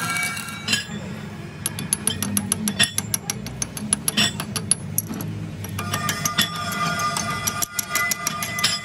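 Stick-welding arc on a pinion gear tooth, cutting off just under a second in, followed by rapid metallic clicks and scraping as a hand tool chips and rubs slag off the fresh weld bead.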